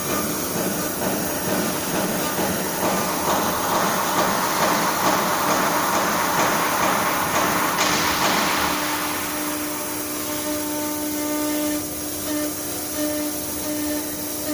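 ATC CNC wood router running, with a steady spindle whine and a hiss of cutting that swells from about three seconds in and fades near the middle.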